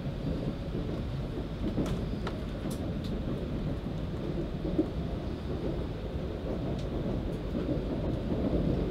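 Steady low rumble of an E4 series double-deck Shinkansen running, heard inside the passenger cabin, with a few faint clicks.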